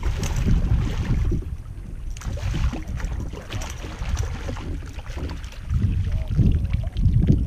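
Hooked redfish (red drum) splashing and thrashing at the water's surface as it is reeled to the kayak and netted, over low wind buffeting on the microphone. The splashes come in repeated short bursts, mostly in the first half.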